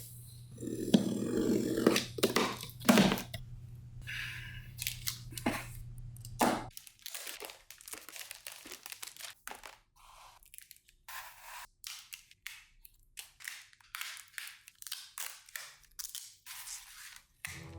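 Trading-card packaging and cards being handled: plastic and paper crinkling and tearing, with scattered sharp clicks and rustles. A low steady hum stops about seven seconds in.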